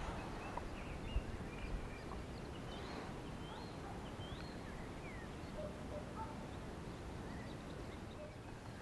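Songbirds calling faintly, with short scattered chirps and whistles over a quiet open-air background.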